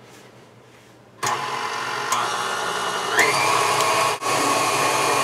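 Electric stand mixer with a wire whisk attachment switching on about a second in and beating an egg into a creamed butter and sugar mixture. Its motor whine steps up in pitch twice as the speed is turned up towards medium, with a brief break just after four seconds.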